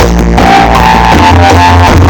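Loud music with a heavy, held bass line and a melodic plucked line above it.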